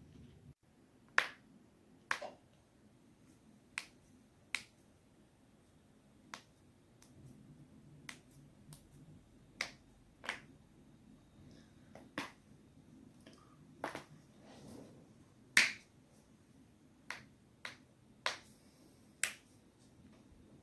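Sharp cracks and pops of a person's neck and back joints being cracked, about sixteen separate cracks spaced irregularly, roughly one a second. The loudest comes about two-thirds of the way through.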